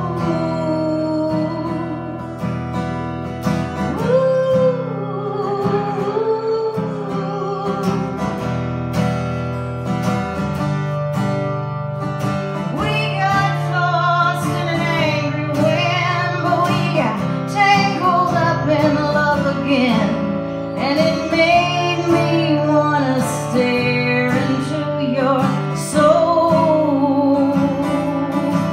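A woman singing live, accompanying herself on a strummed acoustic guitar.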